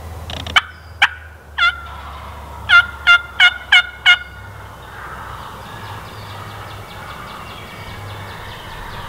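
Wild turkey jakes calling as they fight: three sharp calls in the first two seconds, then a quick run of five loud calls about three a second, followed by fainter fast rattling calls.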